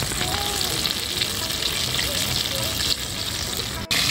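Flour-coated chicken legs deep-frying in hot refined vegetable oil in a kadai, a steady bubbling sizzle. Near the end it breaks off for an instant and comes back louder.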